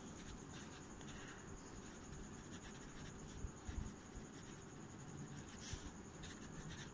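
Faint scratching of a Parker fountain pen's steel nib on ruled notebook paper as a short phrase is handwritten, with a few small stroke and tick sounds.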